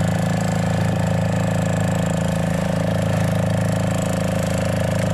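Fishing boat's engine running at a steady speed while the boat is underway, an even running note with a fast, regular pulse.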